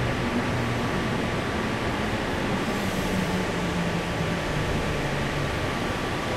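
Electric suburban train heard from inside the carriage: steady running noise of wheels on rail, with a motor hum that slowly falls in pitch as the train slows into a station.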